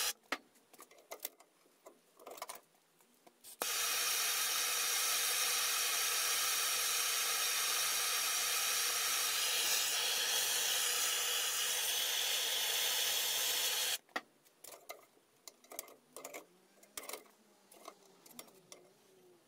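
MAPP gas hand torch burning with a steady hiss for about ten seconds, cutting off suddenly. Before and after it, only light clicks and taps of pliers and steel bar.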